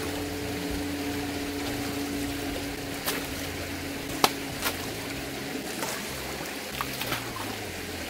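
Shallow river water running steadily, with a few short knocks and light splashes as a keyboard hanging on its cable is dunked and moved about in the water. A faint steady hum sits under it and stops about five seconds in.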